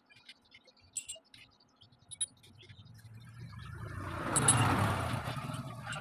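A few light metallic clicks as small steel pieces are set onto a steel window-grill frame, then a motor vehicle's engine swells up and fades away as it passes. The engine is loudest about four and a half seconds in.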